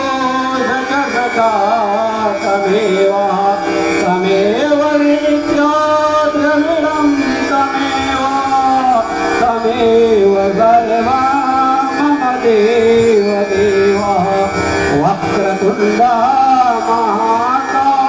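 A Hindu priest chanting a Sanskrit mantra into a microphone, sung in long sliding melodic phrases over a steady drone.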